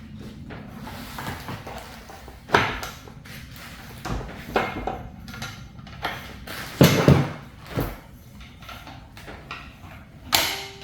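Gun vise parts being handled on a bench: a series of separate knocks and clunks a few seconds apart, the heaviest about seven seconds in.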